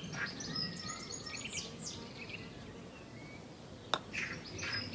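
Birds chirping in quick, high, twittering calls with a few short falling notes, faint in the background. A single sharp click comes at about four seconds in.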